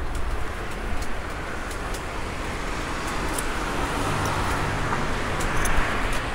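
Road traffic noise with a vehicle drawing nearer: a low engine hum comes up in the second half and the sound grows a little louder toward the end, with scattered faint ticks.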